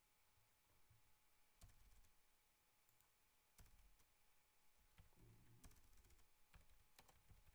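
Faint computer keyboard keystrokes: single key presses a couple of seconds apart at first, coming closer together in the second half.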